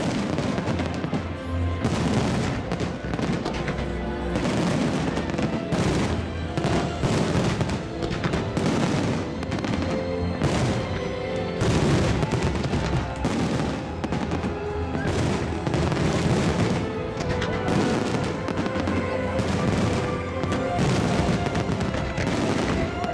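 Fireworks going off in a dense string of bangs and crackles, with loud music playing underneath.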